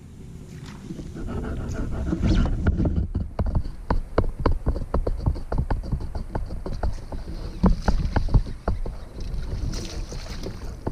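Rod and reel being worked during a lure retrieve: rapid, irregular clicks and taps over a low rumble.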